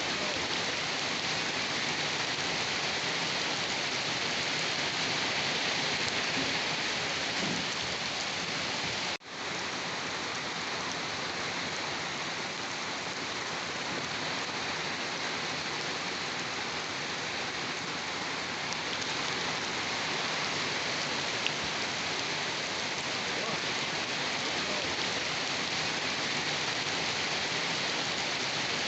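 Steady rain falling, an even hiss that drops out for an instant about nine seconds in before carrying on unchanged.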